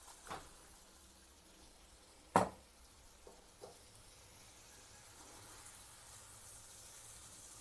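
Eggs going into a pan of frying masala: a light knock, then one sharp knock against the pan about two and a half seconds in and a couple of faint clicks, followed by faint sizzling of the oil-rich masala that slowly grows.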